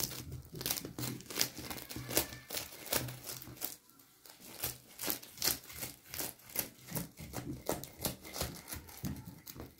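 Knife cutting through the crisp, flaky baked crust of a coiled Bosnian börek: a run of irregular crackles and crunches, briefly pausing about four seconds in.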